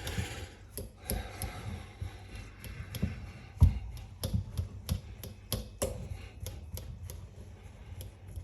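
A fork mashing cooked potatoes, its tines clicking and knocking irregularly against the dish about once or twice a second, with one louder knock a few seconds in.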